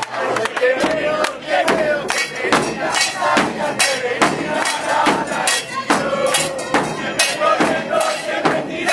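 Crowd of football supporters chanting a terrace song, carried by loud, sharp rhythmic beats about three a second.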